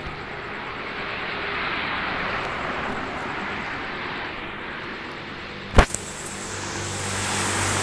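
Storm wind rushing in gusts, swelling and easing, with a single sharp bang about six seconds in.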